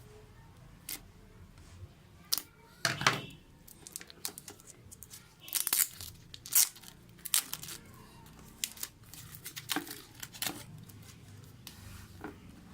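Packaging of a smartphone box being torn and crinkled open by hand: a run of short, sharp rips and rustles, loudest about three seconds in and again around six to seven seconds in.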